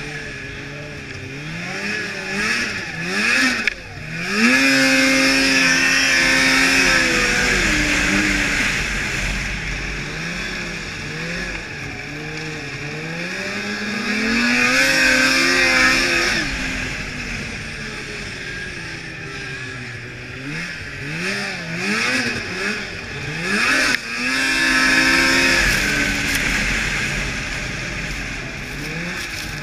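2002 Blade Striker 600 race snowmobile's engine revving up and down as the throttle is worked through the turns. It holds high revs for a couple of seconds on the straights about 5, 15 and 25 seconds in.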